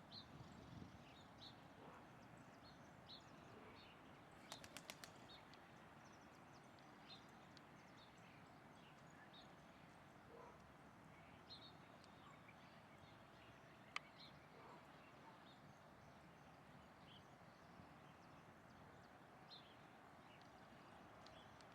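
Faint, scattered short bird chirps over quiet outdoor background. A quick run of about five sharp clicks comes about five seconds in, and a single sharp click near fourteen seconds.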